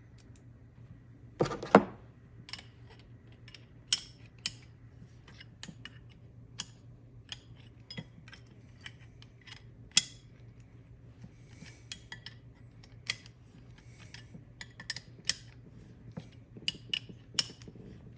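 Two steel 19 mm wrenches clinking and clicking on brass hose fittings as the fittings are tightened down, in irregular sharp metallic clicks, the loudest about one and a half seconds in.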